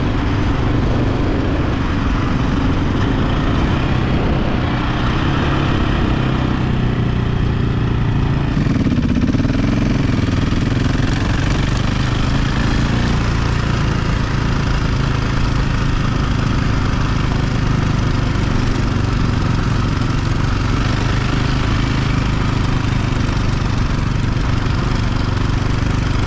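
KTM 520 dirt bike's single-cylinder four-stroke engine running steadily while under way, under a constant rushing noise.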